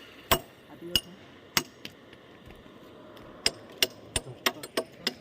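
Hammer striking steel on an excavator bucket's tooth fittings, about ten sharp metallic blows with a short ring: a few spaced blows in the first two seconds, then a quicker run of six near the end.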